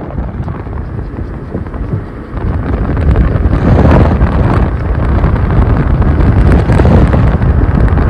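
Wind buffeting the microphone in a moving car, over the rumble of the road. It gets louder about two seconds in.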